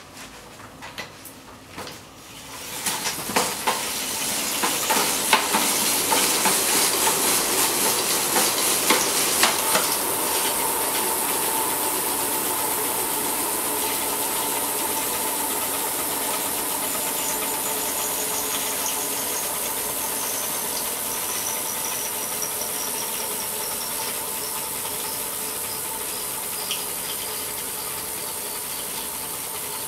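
A bicycle wheel being spun up, with rapid clicking for the first several seconds, then a steady hissing whir as it keeps spinning, slowly getting quieter.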